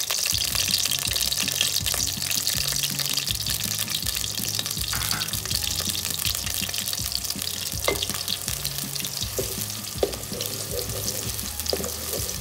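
Sliced onions sizzling in hot oil in a metal pot. A spatula starts stirring them near the end, and a few sharp clicks stand out.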